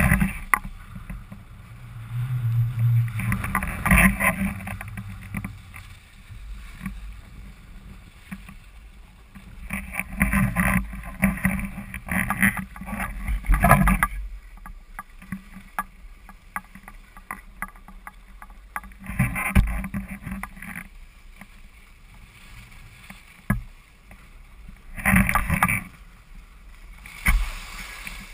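Skis sliding and scraping over groomed snow during a downhill run, swelling in surges every few seconds as the skier turns, with wind rumbling on the camera microphone.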